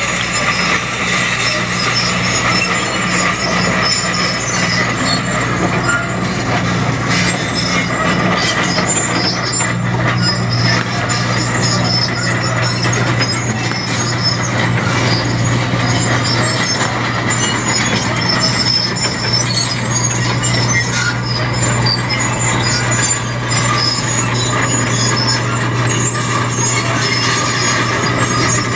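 Diesel engine of a Sumitomo SH210 hydraulic excavator running steadily at work, a constant low hum.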